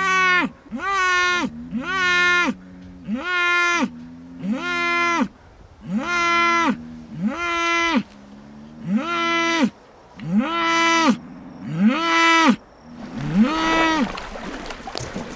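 Spanish fighting bull bellowing over and over in a steady rhythm: about ten short calls, one every second and a half or less, each rising sharply, held briefly, then dropping off. The last call near the end is weaker, and a few faint clicks follow.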